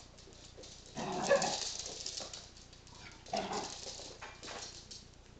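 Small dogs, a dachshund and a Chihuahua, play-fighting, with short bursts of barking about a second in and again about three and a half seconds in.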